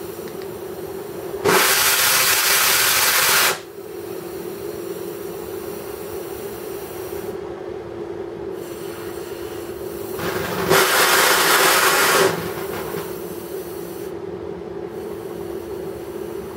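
Oxyhydrogen welding station running with a steady hum and hiss. Twice, a much louder hiss of gas starts sharply, lasts about two seconds and stops.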